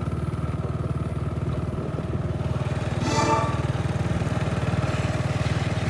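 Motorbike engine running steadily with a fast low pulsing while riding, and a short pitched tone, like a horn, about three seconds in.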